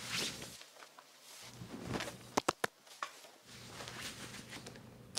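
Cloth rustling and swishing in a series of soft sweeps, with a quick pair of sharp clicks about halfway through.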